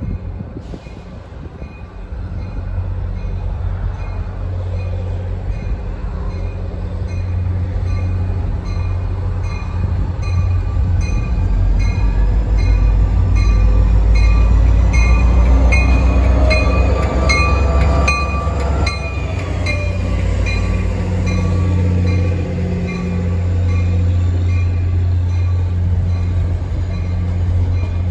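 NJ Transit diesel locomotive hauling a commuter train approaches and passes close by: the engine's low rumble grows loud as the locomotive goes by and its tone slides down in pitch, then the passenger coaches keep rolling past. A high ringing that pulses at an even rate runs underneath throughout.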